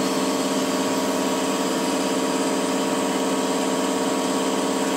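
Woodworking CNC router with an automatic tool changer running with a steady mechanical hum of several even tones over a hiss, holding level with no rise or fall, while it waits between one tool's cut and the next tool change.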